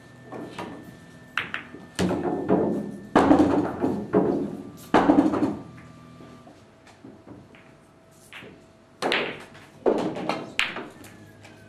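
Irregular dull thunks and knocks in two clusters: a run of loud ones from about two to five and a half seconds in, and another group around nine to ten and a half seconds in, with a quieter stretch between.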